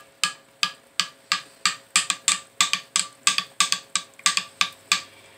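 Light, fairly regular clicks, about three a second: metal wires and a plated part tapping the side of a glass Pyrex measuring cup as they are moved around in an acid stripping bath.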